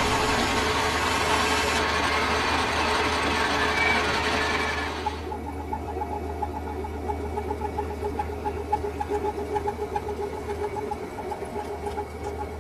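Metal lathe running. A loud, even hiss-like noise for about the first five seconds cuts off suddenly, leaving the machine's steady hum with a rapid, even ticking.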